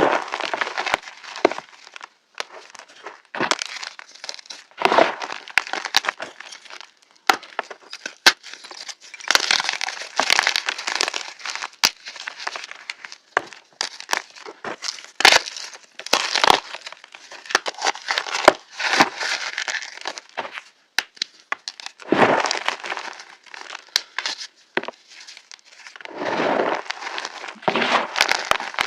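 Pebbles of reformed gym chalk being crushed: irregular bursts of crunching with sharp cracks, each burst lasting about a second or two, with short pauses between.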